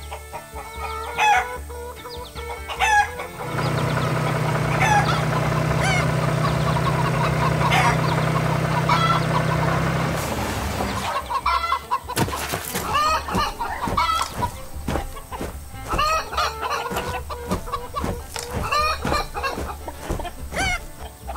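Chickens clucking throughout. From about three seconds in a tractor engine runs with a steady low hum for about seven seconds, then stops, while the clucking goes on.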